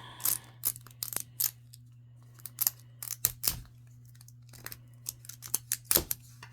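Sharp, irregular clicks and snips of a small plastic Miniverse mini ball being cut and worked open by hand, about a dozen in all.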